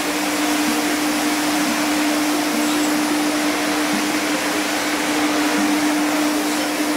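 Rotary single-disc floor machine running, its brush scrubbing shampoo into a rug's pile. A steady motor hum sits over an even, wide hiss.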